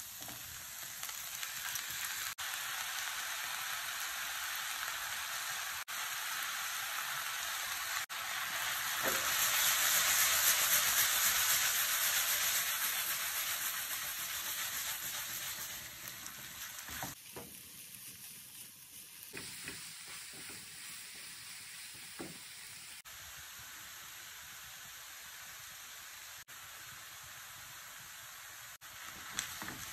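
Chicken chow mein stir-frying in a nonstick wok: a steady sizzle as a silicone spatula stirs and tosses the noodles, chicken and vegetables. The sizzle is loudest in the middle and quieter in the second half.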